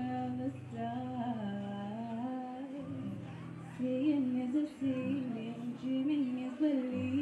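A woman singing a slow, gliding melody with no clear words, over an acoustic guitar playing held chords that change every couple of seconds.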